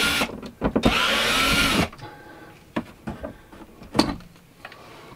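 Black and Decker cordless drill running in two runs of about a second each, its motor whine shifting in pitch as it backs the screws out of the RV antenna's ceiling plate. The drill stops a little under two seconds in, and a few light clicks follow.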